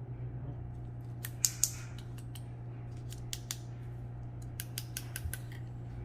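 Small sharp clicks and taps of a plastic syringe and glass medicine vials being handled while drawing up a mixed injection: two louder clicks about a second and a half in, then a scattered run of lighter ones toward the end.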